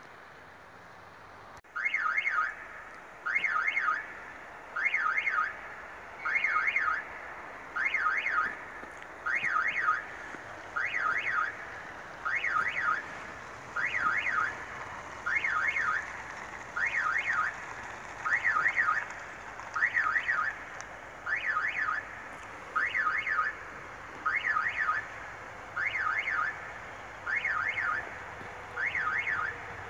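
Railway level-crossing warning signal sounding as a train approaches: a rapidly warbling electronic tone in short bursts, repeating about every second and a half, starting about two seconds in.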